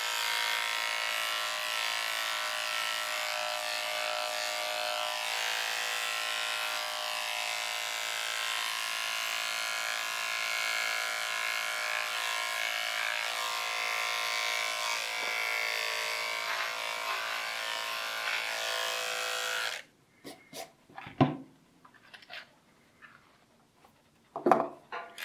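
Corded electric pet clippers running with a steady motor hum as they shave a small dog's coat, then switched off about three-quarters of the way through, followed by a few faint clicks.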